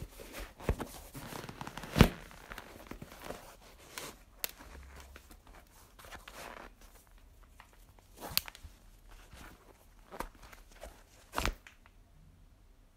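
Sneaker being laced by hand: rustling of shoelaces and fabric with a handful of sharp, irregular taps and knocks, the loudest about two seconds in.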